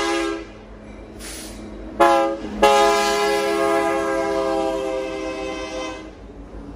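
The multi-chime air horn of Union Pacific 5867, a GE C44ACM diesel locomotive, sounding for a crossing as the train passes close by. One blast cuts off just after the start, a short blast follows about two seconds in, then a long blast that fades out near the end, over the rumble of the passing freight train.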